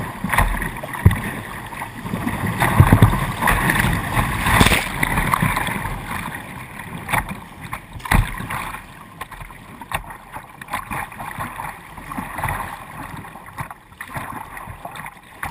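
River rapids rushing and splashing against a plastic whitewater kayak's bow and the camera mounted on it, with irregular sharp splashes. It is loudest in the first half and eases as the water calms.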